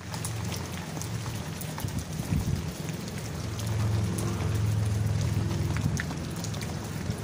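Steady rain falling, with sharp ticks of individual drops landing close by. A low rumble sits under it and swells in the middle.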